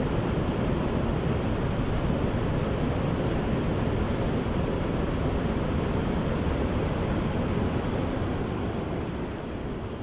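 Steady rushing roar of a large waterfall, easing slightly near the end.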